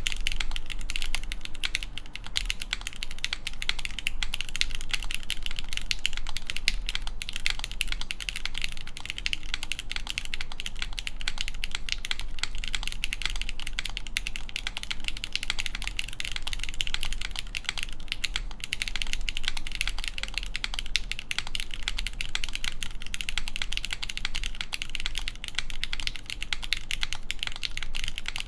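Steady, fast typing on a Mode Tempo mechanical keyboard: lubed Gateron X linear switches in a full aluminum plate with no foam, struck through GMK Teradrive keycaps, giving a continuous run of key clacks.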